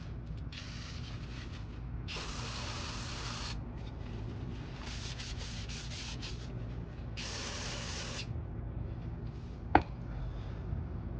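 Aerosol brake parts cleaner sprayed in several hissing bursts and a rag rubbing over a car's flywheel face, cleaning the friction surface before the clutch goes on. One sharp clink near the end.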